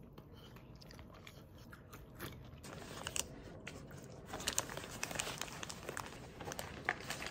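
Quiet chewing of fries, then a paper burger wrapper crinkling and rustling as it is handled. The crinkling starts about three seconds in and grows busier and louder toward the end.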